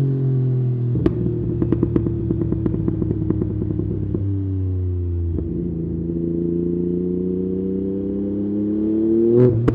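Yamaha MT-09 three-cylinder engine through an aftermarket Akrapovic exhaust, settling at a fast idle after a rev, with a rapid string of exhaust pops and crackles for about three seconds starting a second in. The revs then creep up slowly, and near the end comes a quick blip with a sharp crack.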